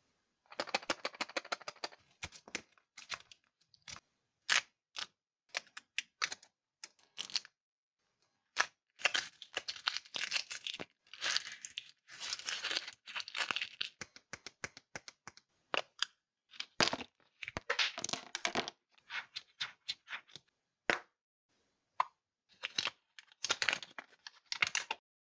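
Close-up handling of a Kinder Surprise egg: crisp crinkling and tearing of the foil wrapper in short bursts, sharp cracks and clicks as the chocolate shell and plastic capsule are opened, and near the end the rustle of the folded paper insert being unfolded.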